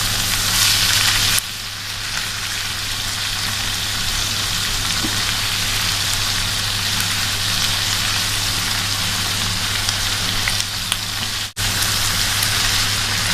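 Sausage with onions, green peppers and tomatoes sizzling steadily in a frying pan, with a brief break about eleven and a half seconds in.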